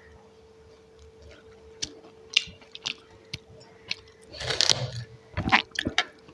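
Close-miked chewing and biting of food: scattered sharp mouth clicks and crunches, building to a dense burst of chewing about four and a half seconds in. A faint steady hum runs underneath.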